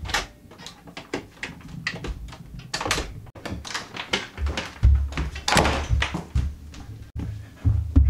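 A string of knocks and thumps of someone hurrying through a house, with heavier, deeper thuds in the second half: footsteps and household handling noise.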